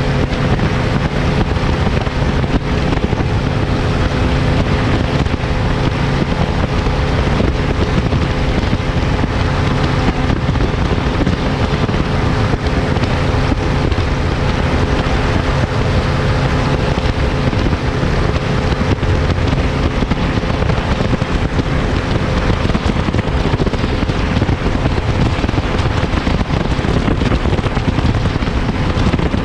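Bass boat's outboard motor running steadily at cruising speed, its hum overlaid by heavy wind buffeting on the microphone.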